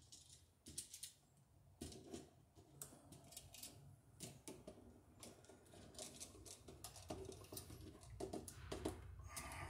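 Faint scattered clicks and scrapes of a screwdriver and stiff copper wire being worked at a GFI receptacle in its plastic electrical box while the ground wire is fastened, coming thicker near the end.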